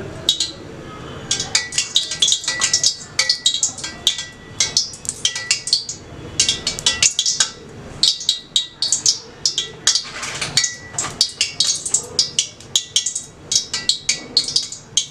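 Food frying in a pan of hot oil: dense, irregular crackling and spattering throughout.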